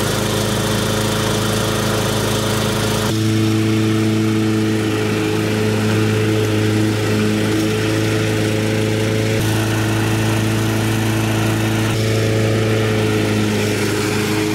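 Ariens commercial self-propelled lawnmower's small single-cylinder engine running steadily at working speed, with its friction-wheel drive engaged as the mower drives itself over grass on a test run after the drive was adjusted. The tone shifts slightly a few times.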